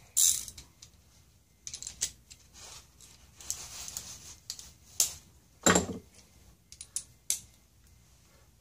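Small metal screws and hand tools being handled: scattered clicks and short rattles, with a heavier knock about six seconds in.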